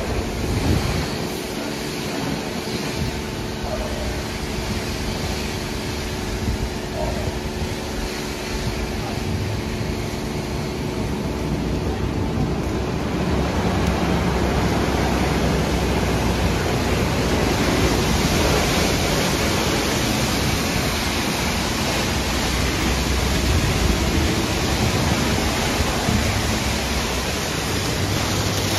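Istobal M'Start rollover car wash in its brush-wash stage: rotating brushes swishing over a wet car amid spraying water, with a steady machine hum underneath. It gets louder about halfway through.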